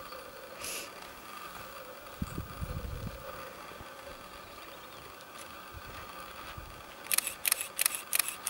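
A rapid run of sharp, evenly spaced clicks, about four a second, starting about seven seconds in and louder than anything before it, over a faint outdoor background.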